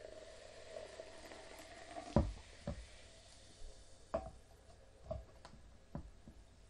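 Sparkling water poured from a can into a glass, a fizzing, splashing hiss that fades over the first two to three seconds. After that, about six light knocks of the glass and can being handled on the table.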